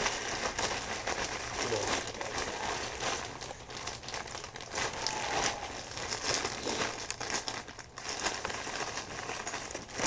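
Plastic bag crinkling and rustling as gun parts are unwrapped from it, with many small clicks, and a sharper knock at the very end.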